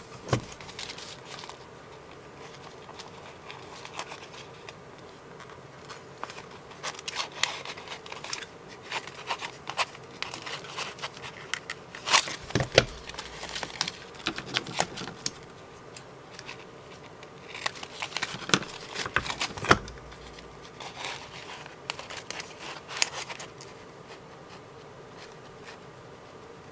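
Sheet of book paper rustling and crinkling as it is handled and slid under a circle paper punch, with a few sharp clicks, the loudest about twelve and twenty seconds in. A faint steady hum runs underneath.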